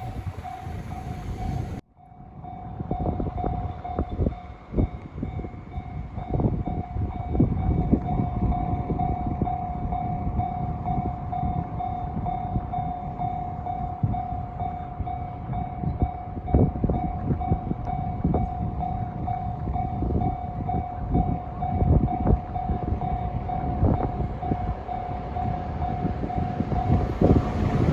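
Japanese railway level-crossing alarm ringing steadily, a repeating electronic ding, over a low rumble with scattered knocks. A train runs briefly before a cut about two seconds in, and a train's noise swells near the end.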